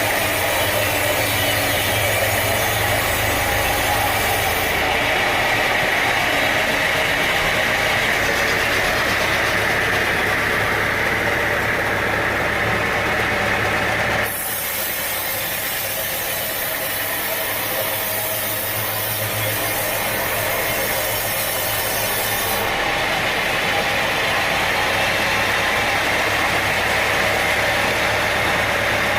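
Sawmill machinery running steadily, an engine-driven saw with a continuous mechanical hum; the sound changes abruptly about halfway through.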